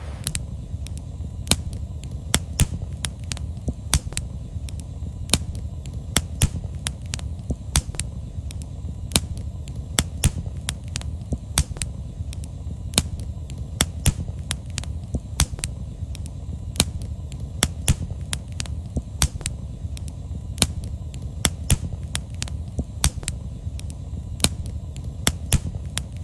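Firewood burning in a fire-pit brazier, crackling with sharp, irregular pops a few times a second over a low steady rumble.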